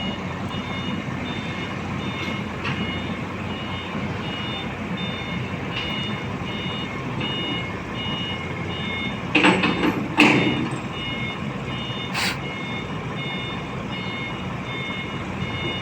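A heavy machine's backup alarm beeps in a steady repeating pattern over a running diesel engine, during the loading of a Volvo EC210 excavator onto a truck. Loud bursts of noise break in about halfway through, and a shorter one comes about two seconds later.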